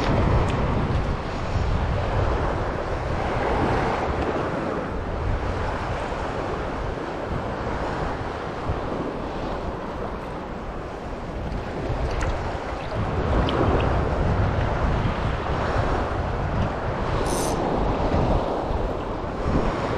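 Wind buffeting the microphone over sea waves washing in, a rushing noise that swells and eases every few seconds.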